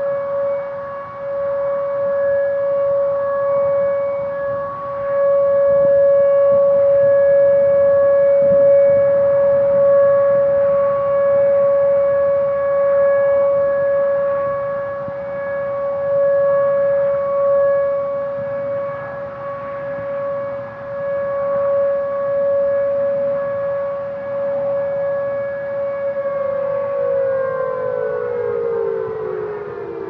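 Whelen WPS-2905 electronic storm siren sounding its steady 560 Hz Alert tone, its loudness swelling and fading. Near the end the tone glides down in pitch as the alert winds down.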